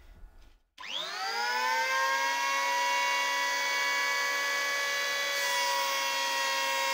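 Electric hand planer switched on: its motor and cutter head whine up to speed in about a second, then run steadily at full speed. A brighter hiss joins about five seconds in as a board is pushed under the cutter.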